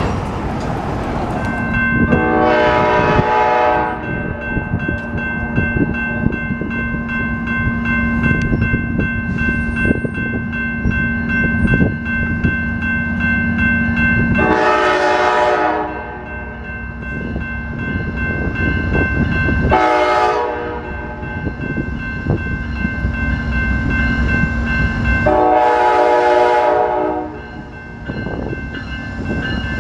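Amtrak P42DC diesel locomotive approaching and sounding its horn four times, long, long, short, long, the standard grade-crossing signal, over a continuous rumble of engine and wheels.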